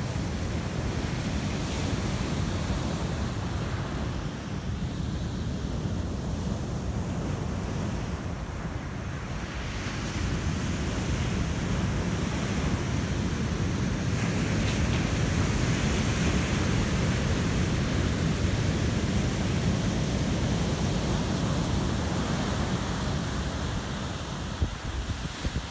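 Heavy ocean surf: large waves breaking and whitewater washing up the sand in a steady rush, which grows louder about ten seconds in.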